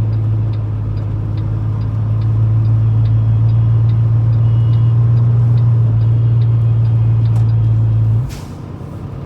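Semi-truck's diesel engine drone heard inside the cab, steady and loud, with faint regular ticking over it. About eight seconds in the drone drops away suddenly and a short hiss follows.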